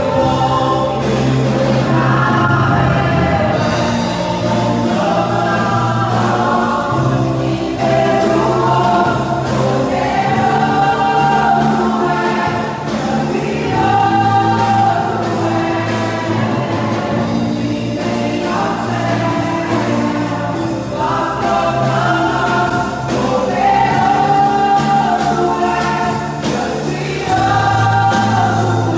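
Gospel worship song: a choir singing phrases a few seconds long over a band with bass and keyboards.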